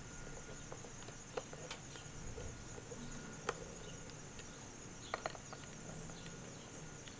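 Steady high-pitched insect chirring, typical of crickets, with a faint low hum beneath and a few light clicks and taps scattered through, the sharpest about three and a half seconds in and two more around five seconds.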